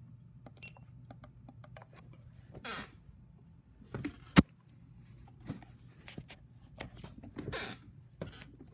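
Handling noise as the camera and clock are moved: rustles and light clicks over a low steady hum, with one sharp knock a little over four seconds in. Near the start there is a short high beep, like the clock radio's button beeps just before.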